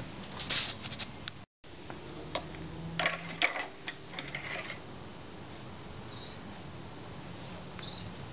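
Light plastic clicks, knocks and rattles as an oil funnel and the filler neck of a lawn mower engine are handled: a few scattered clicks, a brief dropout, then a denser cluster of rattling clicks lasting about two seconds.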